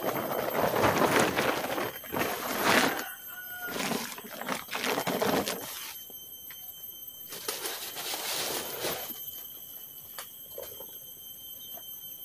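Blue plastic tarpaulin rustling and crinkling as it is unfolded and draped over a tree branch, in a run of noisy bursts through the first half and another a little later, then quieter handling with a few small clicks.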